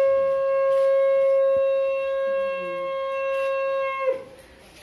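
Conch shell (shankha) blown in one long, steady note that bends down and breaks off about four seconds in.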